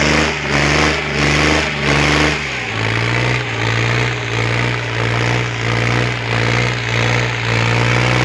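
John Deere 5036 tractor's diesel engine working hard under load while dragging a disc harrow, its pitch dropping a little about two seconds in as it lugs down, then running steady with a pulsing beat about twice a second.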